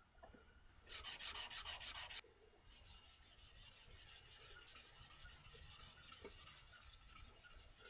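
A Stanley No. 64 spokeshave being rubbed back and forth on 220-grit sandpaper to flatten it. A louder run of quick strokes starts about a second in, then a steadier, quieter rubbing follows.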